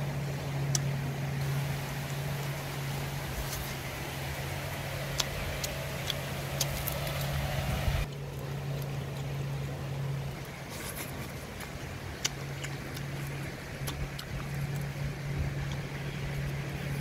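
Shallow river running over stones, an even rushing noise, with a steady low hum underneath and a few faint clicks.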